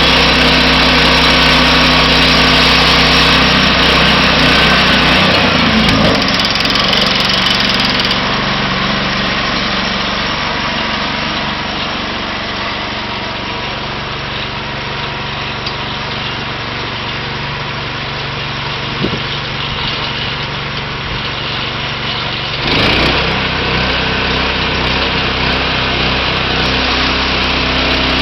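Small gasoline engine of a portable band sawmill running steadily. Its note drops and changes about five seconds in, then comes back up abruptly a few seconds before the end.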